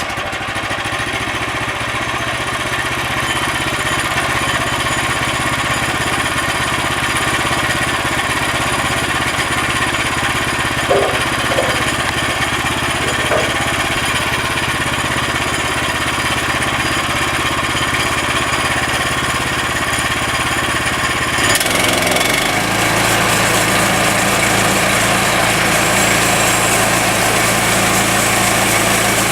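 A small engine running steadily, with an abrupt change in its low tone about two-thirds of the way through.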